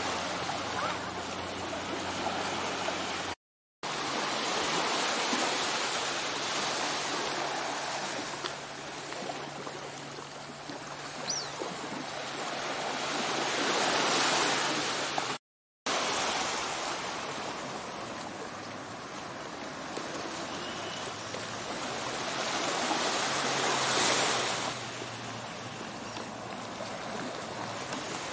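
Small waves washing onto a sandy beach on a calm bay, a steady rush that swells and eases slowly. It cuts out briefly twice.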